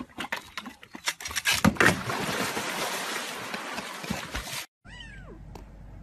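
A bear splashing in a backyard pool: scattered knocks, then steady water splashing. After a sudden cut, a kitten mews once near the end, in a single falling cry.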